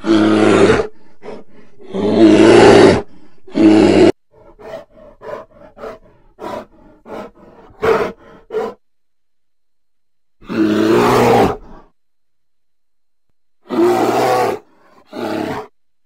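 Bear roaring in loud, drawn-out calls, three close together at the start, then a run of short, quieter calls about four to nine seconds in. After a pause come three more roars, the first about ten seconds in.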